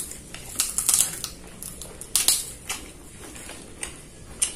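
Close-miked eating: chewing with irregular sharp crunches and clicks, the loudest about one and two seconds in, as hand-eaten rice and side dishes are taken from a paper wrapper.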